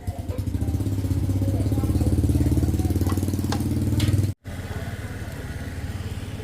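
A small engine running steadily with a rapid, even beat. A little past four seconds in it cuts out for an instant, then carries on quieter.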